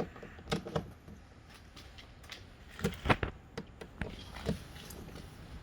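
Irregular light clicks and knocks of a ratchet socket wrench being fitted to and worked on a door bolt, with no steady run of ratchet clicking.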